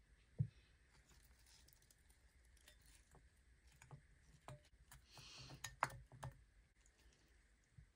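Faint handling of leafy greens in a small metal bowl of water: scattered light taps and clicks, a soft thump near the start and a brief swish about five seconds in.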